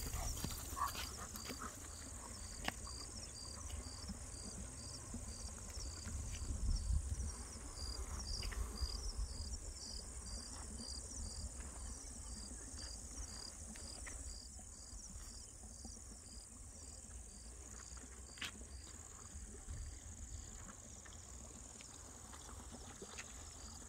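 Crickets chirping: a steady high trill with a chirp repeating about twice a second, over a low rumble on the microphone that swells about six to nine seconds in.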